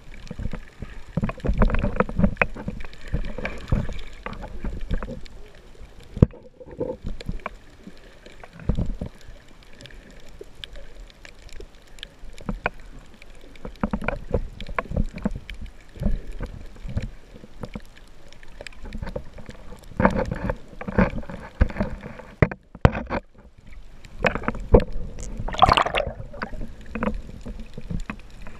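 Muffled underwater sound picked up by an action camera in its waterproof housing: irregular sloshing, knocks and bubbling from the swimmer's movement through the water. There are two brief dropouts, and near the end a short rising squeal.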